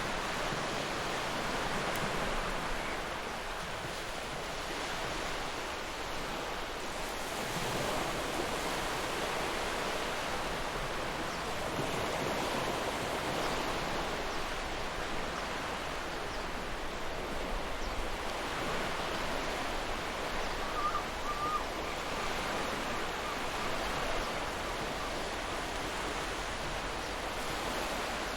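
Ocean surf: waves washing in as a steady hiss that swells and ebbs every few seconds.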